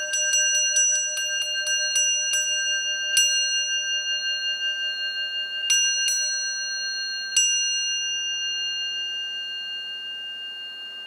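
Electronic music: a held, high, bell-like tone rings over a run of struck pings. The strikes come about three or four a second at first, then only a few isolated strikes follow, and the ringing slowly fades toward the end.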